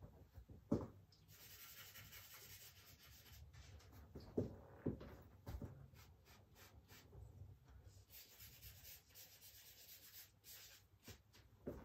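Charcoal scratching and rubbing on paper as a portrait is drawn, a faint steady scratchy hiss, with a few soft knocks in the first half.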